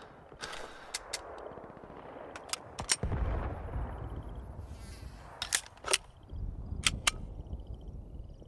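About ten sharp cracks spread unevenly over a low rumble. Faint, short, high chirps sound in the gaps.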